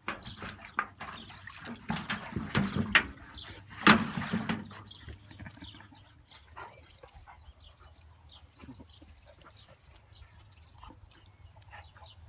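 Two young dogs play-fighting, growling and snarling at each other in irregular bursts over the first few seconds, loudest about four seconds in. After that it drops to faint, scattered scuffling sounds.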